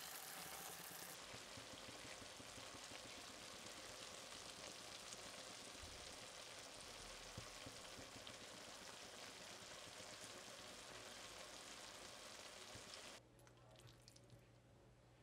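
Shakshuka, tomato sauce with eggs, sizzling faintly in a frying pan, a steady light crackle that cuts off suddenly near the end. A few faint clicks follow.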